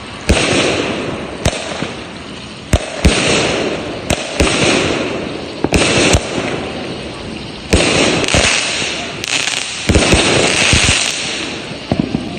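Consumer fireworks cake firing a rapid run of shots: a sharp bang roughly every second, sometimes two close together, each trailed by about a second of noisy crackle as the effects burst.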